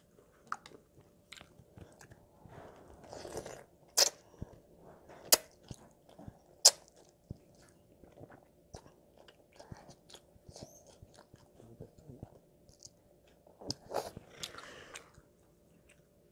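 A child eating jjajangmyeon (black bean noodles) close to a clip-on microphone: chewing with wet mouth smacks and sharp clicks, the loudest about four to seven seconds in. There are two longer noodle slurps, about three seconds in and near the end.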